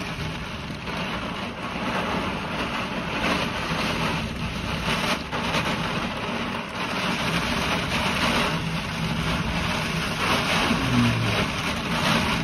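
Storm wind blowing hard in gusts, with rain falling during a thunderstorm.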